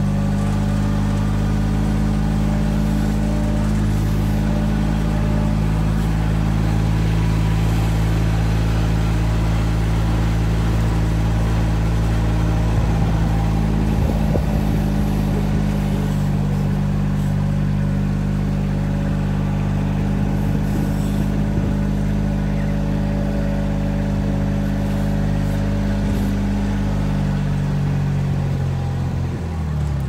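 A motor vehicle's engine running steadily at low speed as it drives, its pitch dropping near the end as it slows down.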